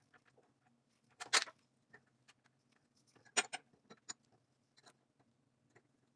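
Scattered small clicks and taps of glass-door hinge parts and their rubber and plastic protection pieces being handled, with a sharper click about a second in and another about three and a half seconds in.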